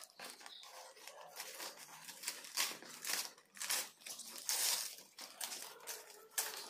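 Gift-wrapping paper being torn and crumpled by hand as a present is unwrapped, in a string of irregular rips and rustles.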